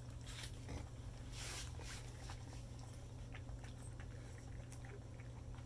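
A litter of beagle puppies eating a wet mash of ground dog food and goat's milk from a metal pan: small irregular lapping and smacking clicks, over a low steady hum.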